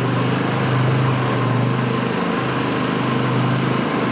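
ATV engine running steadily as the quad is ridden at low speed, with a brief dip in engine note about two seconds in.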